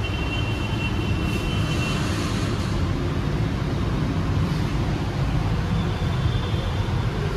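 Steady low rumble of background noise, with a faint thin high whine during the first two seconds.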